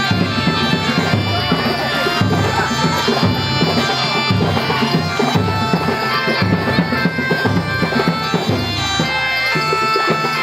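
Loud traditional procession music: a nasal, reedy wind instrument of the shawm type plays a sustained melody over a steady pattern of drums.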